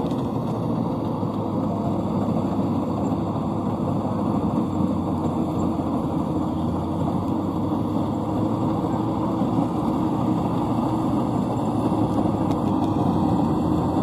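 Maxxi Corn Type G combine harvester running steadily as it cuts rice, a continuous engine and machinery hum that grows slightly louder toward the end.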